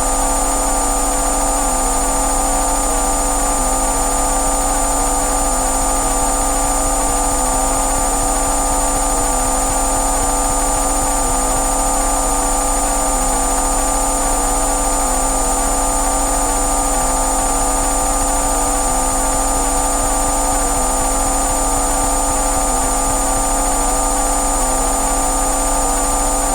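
Synthesized drone of a bioresonance frequency track: several steady electronic tones layered over a low hum, with a faint, regular wavering about once a second.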